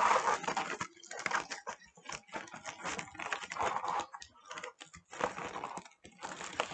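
Air-filled 20-inch Starpoint foil balloons crinkling and crackling as they are handled, with irregular bursts of rustling as their points are worked together to be tied.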